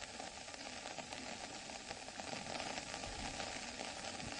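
Heavy rain falling, heard as a steady, faint hiss.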